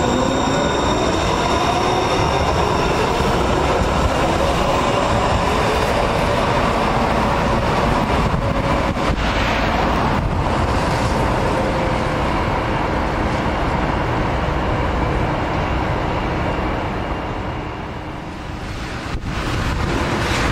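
A MAX light rail train pulling away from the station: its electric traction motors give a rising whine for the first couple of seconds as it accelerates, then settle into the steady running noise of the train passing and moving off.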